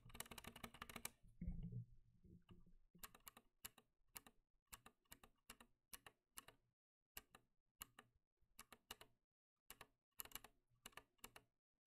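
Quiet typing on a mechanical keyboard with Zilents V2 silent tactile switches, its stabilizers dampened with Blu Tack to take away the pingy stabilizer noise. A fast run of keystrokes comes in the first second and a deeper thud about a second and a half in, then separate keypresses with short pauses.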